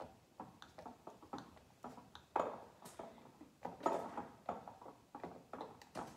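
Hand-pump dish soap dispenser pressed over and over to fill a tablespoon, making an uneven run of small clicks and knocks, the loudest about two and a half and four seconds in.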